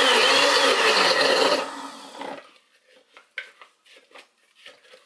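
Countertop blender running loud as it blends blueberries, its pitch wavering with the load, then switched off under two seconds in and winding down. Afterwards a few light knocks as a spatula works in the jar.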